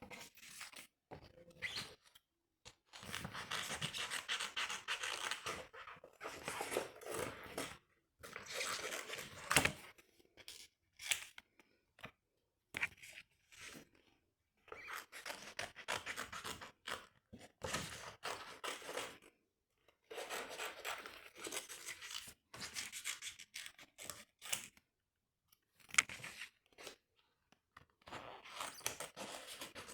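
Sticker paper being handled: scratchy, papery sounds in bursts of one to a few seconds, with short pauses between them.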